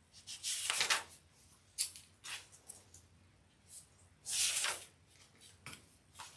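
Thin Bible pages rustling and swishing under the hands as they are turned and smoothed, in several short strokes, the longest about a second in and again past the four-second mark.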